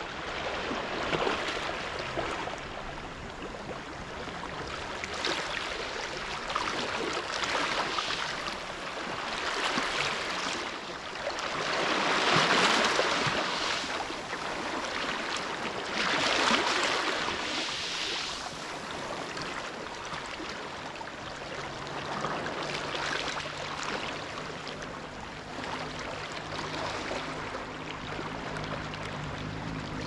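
Waves breaking and washing back over a pebble beach, the surge swelling and ebbing every few seconds, loudest about twelve seconds in. A faint low steady hum comes in about two-thirds of the way through.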